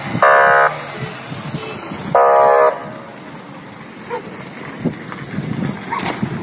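A car horn honks twice, two short blasts of about half a second each, roughly two seconds apart.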